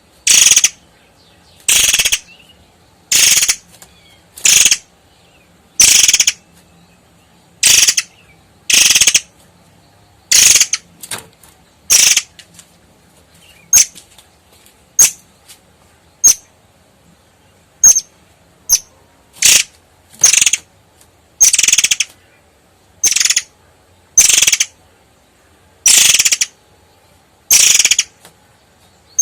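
Long-tailed sibia (murai air) giving short, sharp, loud calls over and over, roughly one a second, each a brief high-pitched burst.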